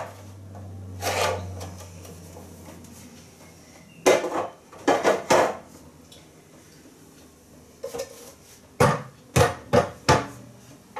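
Knocks and clatters of household items being picked up, shifted and set down on top of wooden kitchen cupboards, coming in short bunches about a second in, around four to five seconds in, and again near the end.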